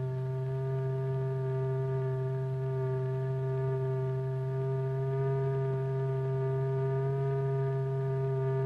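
A steady electronic tone, the sound that drives the vibrating membrane and its powder. It holds one pitch throughout, with a low hum beneath it and a row of fainter overtones above.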